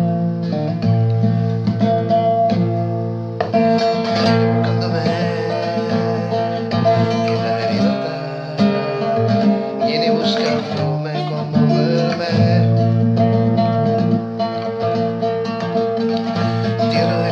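Nylon-string classical guitar played, plucked chords ringing on in a steady flow of notes.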